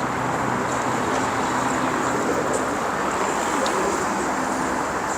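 Steady city street background noise: a constant hum of road traffic.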